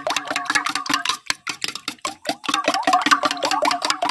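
Eggs being beaten with a fork or spoon against a bowl: a fast, even run of clicking strokes, about ten a second.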